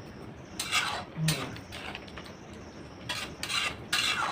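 A metal spoon or spatula scraping against a cooking pot in short strokes, in two pairs, while the chicken sabji is stirred.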